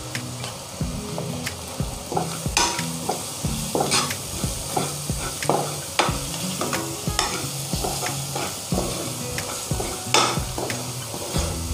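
Steel spoon stirring and scraping an onion-tomato masala as it fries in oil in a kadhai: irregular scrapes and clinks against the pan over a low sizzle, with a few sharper scrapes now and then.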